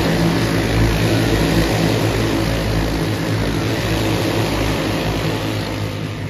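Racing karts on a dirt oval running past at speed, a pack of engines at full throttle, loudest near the start and fading a little toward the end.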